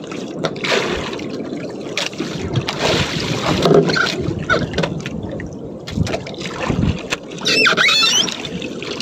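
Sea water sloshing and slapping around a small wooden outrigger boat, with wind on the microphone and scattered knocks, as a handline is hauled in by hand. A brief high wavering sound comes near the end.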